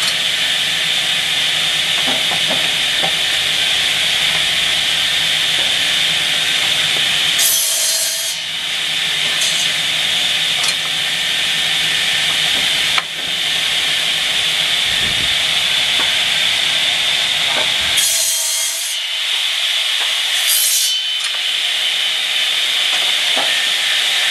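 Double-head circular cutting saw running with a steady high whine. Its blades cut through the ends of wooden pallet stringers in short bursts: once about a third of the way in and twice more near the end.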